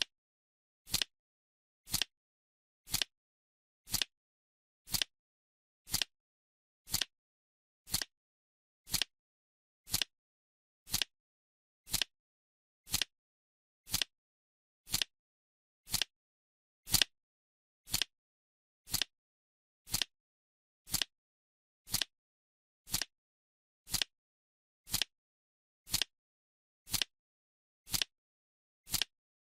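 Clock-style ticking, one sharp tick each second, evenly paced, with silence between the ticks.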